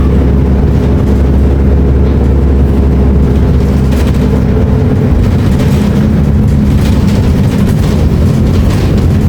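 Volvo B340M Euro V bus's six-cylinder diesel engine running under way, a steady low drone whose note shifts about halfway through.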